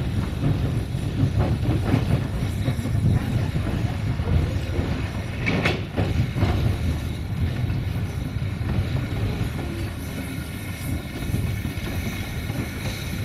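Narrow-gauge railway carriage running behind a steam locomotive: a steady low rumble of wheels on rails with irregular clacks over the rail joints, and one sharper knock about five and a half seconds in.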